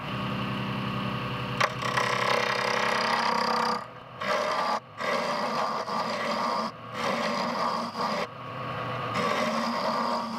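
Small wood lathe running with a steel turning chisel scraping a spinning wooden spool blank down to size. The cutting comes in several stretches, broken by short pauses where the tool is lifted off and only the lathe's hum is left.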